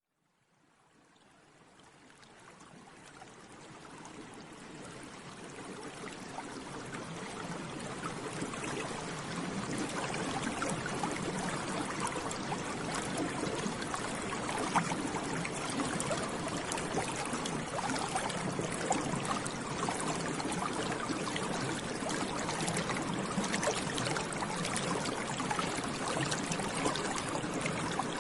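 Air bubbles rising and bubbling continuously in water, a dense stream of small pops and gurgles. It fades in from silence over the first several seconds, then keeps an even level.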